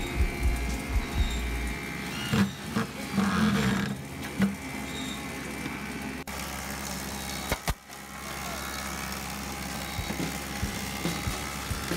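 Corded electric drill driving screws into a wooden cabinet panel in several short trigger bursts, followed by knocks from handling the boards. About two-thirds of the way in there are two sharp snaps from a pneumatic nail gun over a steady low hum.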